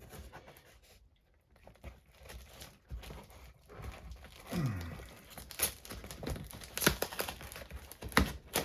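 A shipping package being torn open by hand: paper and plastic packaging crinkling and tearing, with scattered clicks and rustles that grow busier in the second half. About four and a half seconds in there is one short pitched sound that falls in pitch.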